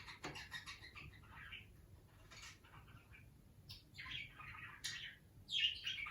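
Budgerigar chattering: a steady run of short scratchy chirps and twitters, with a couple of louder, sharper calls near the end.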